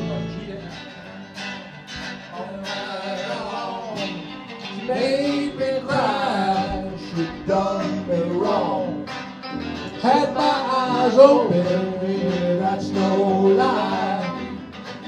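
A band of electric guitars playing a song live, with a man singing lead from about five seconds in.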